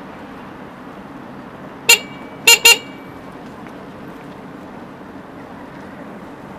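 Three short vehicle horn toots about two seconds in, one and then a quick double, over steady street traffic noise.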